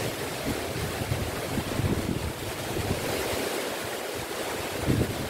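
Surf washing on the shore, with wind buffeting the microphone in uneven low gusts.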